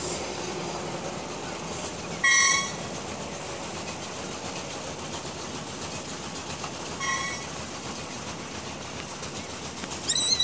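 Long freight train of open coal wagons rolling past, its wheels on the rails making a steady noise. A short high-pitched horn beep sounds about two seconds in, and a fainter, shorter one about seven seconds in.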